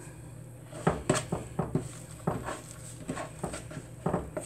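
A fork clinking and scraping against a mixing bowl while biscuit dough is stirred, as a string of irregular knocks that starts about a second in.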